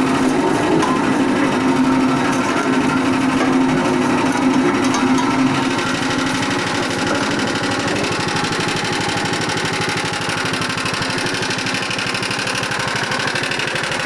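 A motor-driven coconut milk press machine running steadily with a fast, even mechanical rattle. A strong hum in the first half eases about six seconds in.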